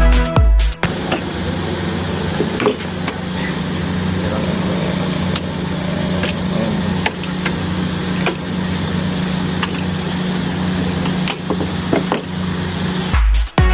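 A mains-powered motor hums steadily during fridge gas-charging work, with scattered clicks and tapping from handling the tools.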